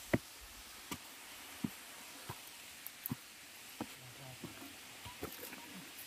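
Footsteps crunching on loose rocks and dry leaves, a short knock about every three quarters of a second, over a faint steady hiss.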